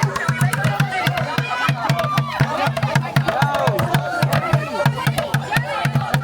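Music with a steady quick bass beat, about four pulses a second, with many voices over it.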